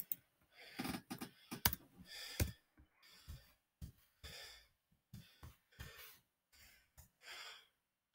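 A mouse click, then scattered computer keyboard keystrokes typed slowly, one or two at a time, with soft breathing in between.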